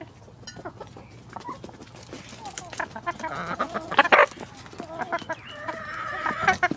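Several chickens clucking as they peck at a slice of ham held out by hand, with quick pecking taps. The clucking gets busier and louder in the second half, with a loud burst about four seconds in.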